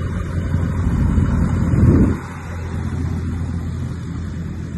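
Bristell NG5 light aircraft's engine running, heard as a steady low rumble inside the cockpit. It swells to a louder peak just before two seconds in, then drops back.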